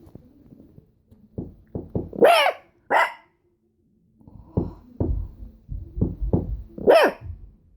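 Repeated knocking in short groups of raps, with a pet dog barking back at it: two barks just after the first raps, then another bark right after a longer run of knocks near the end.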